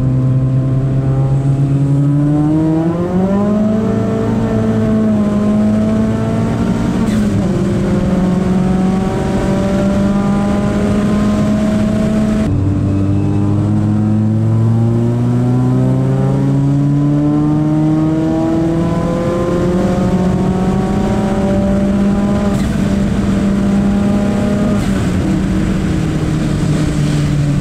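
Ford Fiesta ST's big-turbo engine under hard acceleration, heard from inside the cabin. Its pitch climbs and falls with the revs, drops suddenly about twelve seconds in, then climbs steadily again.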